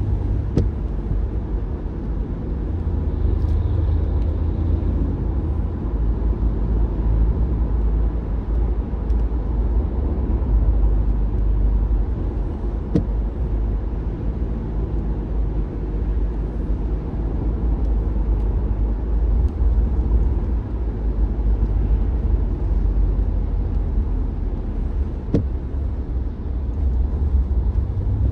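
A car driving along: a steady low rumble of road and engine noise, with three faint clicks spread through it.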